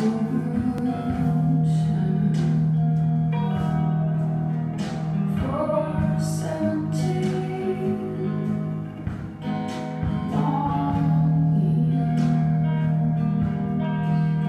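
A recorded song playing: a singer over guitar, with a low held note underneath and scattered percussive hits.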